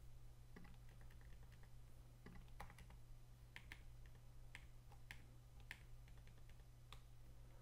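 Faint clicking of a computer mouse and keyboard keys, single clicks every half second to a second or so, over a low steady hum.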